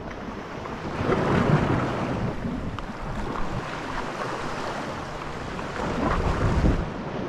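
Wind buffeting the microphone over the sound of sea water, in gusts that swell about a second in and again near the end.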